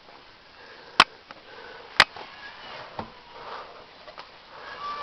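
Two sharp knocks about a second apart and a fainter third, from hands working the scroll saw's tilting table, with the saw switched off.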